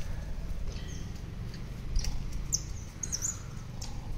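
Scattered short, high animal chirps and squeaks over a steady low rumble.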